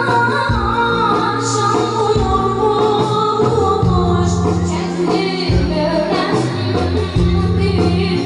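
A young child singing a Turkish arabesk-style song in long, wavering lines over instrumental backing with held bass notes that step from note to note.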